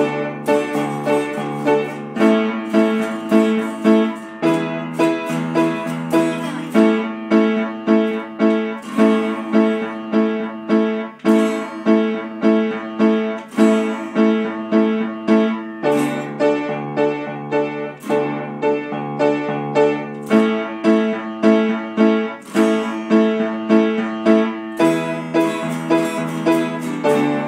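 Upright piano playing chords struck about twice a second, changing chord every couple of seconds in a progression that repeats, with a guitar strummed along.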